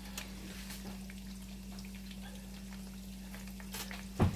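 Breaded chicken cutlets frying in oil: a faint, scattered crackle over a steady low hum, with one sharp knock near the end.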